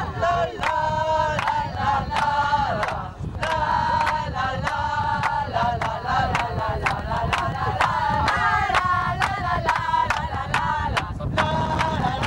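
A group of people singing a chant together, with sharp rhythmic beats about twice a second, like clapping or banging, keeping time.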